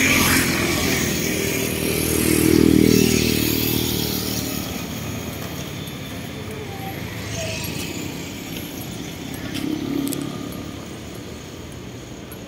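Road traffic passing close by. A motor vehicle swells up and is loudest about three seconds in, then fades, and another passes more faintly near ten seconds in.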